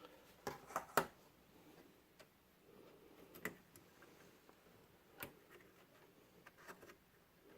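Scattered faint clicks and taps of fingers working the plastic retaining latches of DIMM slots and pulling DDR3 RAM sticks out of a desktop motherboard, the loudest click about a second in.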